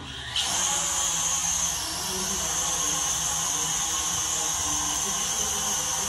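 Small budget quadcopter drone's motors and propellers spinning up and running as it lifts off the floor and hovers: a steady high-pitched whine that starts suddenly and dips slightly in pitch about two seconds in.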